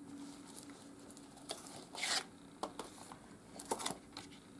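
Cardboard slipcover being slid off a plastic Blu-ray case by hand: light handling clicks and short scrapes, with a brief sliding scrape about two seconds in, over a faint steady hum.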